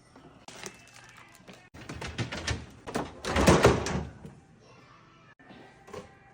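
Knocks and clatter of containers being handled while a fridge is cleared out, with a louder, longer stretch of rattling and rustling in the middle.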